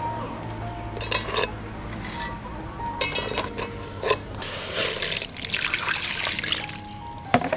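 A few sharp knocks as live mitten crabs are put into an aluminium pot, then water pouring from a jug into the metal pot for about two and a half seconds in the second half.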